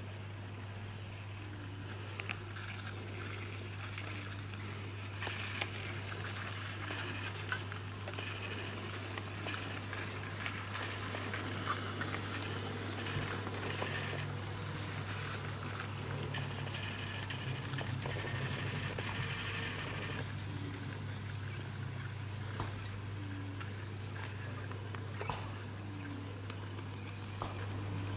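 G scale model electric railcar running on garden track: faint clicks from the wheels and a low motor hum that grows a little in the middle as it passes close, over a steady low hum. Faint bird chirps in the background.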